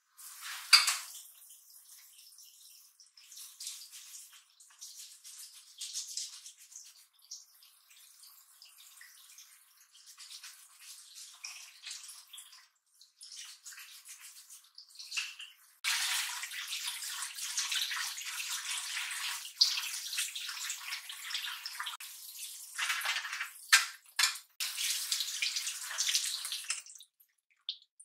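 Kitchen tap water running into a sink as things are rinsed, faint and broken at first, then steady and louder over the second half. A few sharp clinks of dishes.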